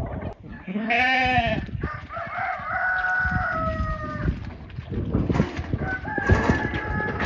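A rooster crows once, a pitched call starting about a second in and held for roughly three seconds. In the second half comes the clatter of a flock of sheep's hooves on stony ground, many quick irregular clicks, with another drawn-out animal call over them.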